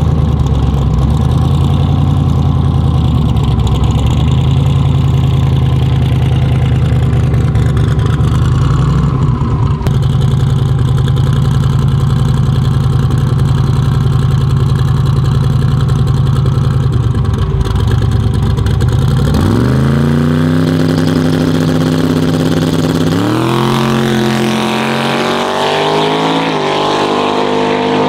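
Twin-turbo 427 cubic-inch LS V8 in a drag Camaro running steadily at the starting line. About 19 seconds in it launches into a full-throttle pass, its pitch climbing and dropping back at gear changes about 23 and 26 seconds in.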